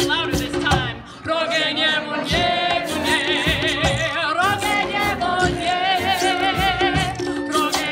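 Live brass band playing an upbeat tune: a woman singing lead over saxophones, trumpet, sousaphone and hand drums, with a steady beat. The band drops out briefly about a second in, then comes back in.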